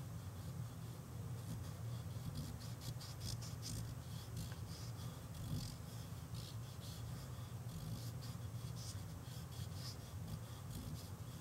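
Fingertips rubbing over mixed media paper, blending watercolor-pencil pigment: soft, irregular scratchy rubbing strokes over a steady low hum.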